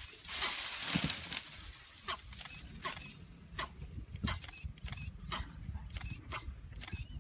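Camera shutters clicking as photographers fire single frames, a sharp click every half second to second from about two seconds in. A burst of rustling noise fills the first second or so, over a faint low rumble.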